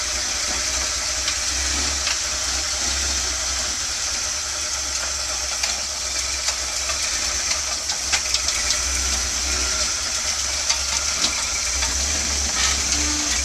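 A lifted Jeep CJ's engine running low and uneven as it crawls up a boulder, under a steady hiss, with a few sharp ticks and knocks of tires and chassis on rock about two-thirds of the way through.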